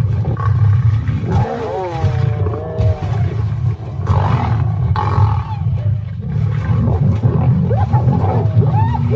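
Lions growling and snarling continuously in a fight. A wavering higher-pitched cry rises over the growls about a second and a half in, and short up-and-down yelping calls come near the end.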